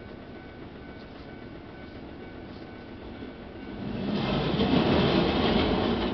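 A Hankai Tramway Mo 501 series single-car tram passing over a level crossing: the rumble of its wheels on the rails rises sharply about four seconds in, peaks, and begins to fade near the end.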